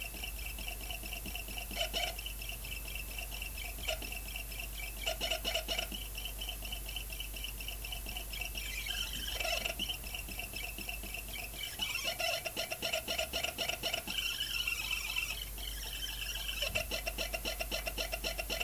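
Pulse motor's trigger and power coils singing in resonance: a steady high electronic whine with a lower tone beneath, breaking several times into fast chattering pulses.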